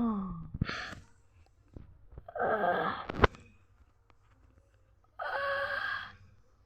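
A person's voice wailing and moaning: a falling wail that dies away just after the start, then three short breathy cries spaced a couple of seconds apart.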